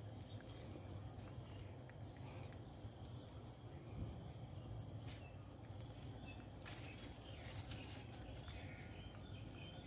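Faint insect trill: one thin high tone that holds steady, breaks off and comes back a few times, over a low steady background hum.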